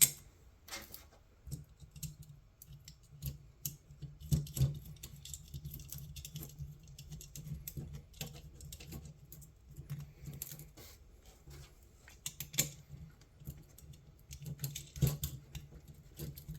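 Irregular small clicks and taps of wire eyelets and terminal hardware being handled and fitted onto a winch relay's terminals, with a faint steady low hum underneath.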